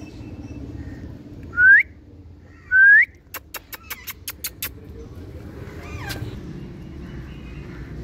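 Indian ringneck parakeet giving two short whistles, each rising in pitch, then a quick run of about eight sharp clicks.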